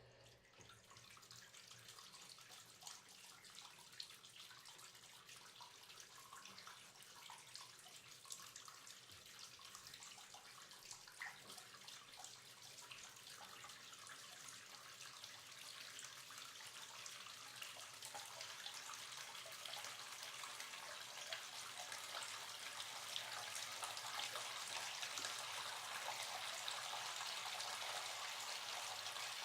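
Hot water running from a tap into a bathtub as it fills, a steady splashing that grows gradually louder over the half-minute.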